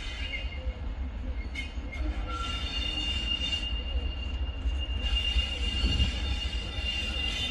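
Train approaching on the track, its wheels giving a steady high-pitched squeal on the rails that grows stronger from about two seconds in, over a constant low rumble.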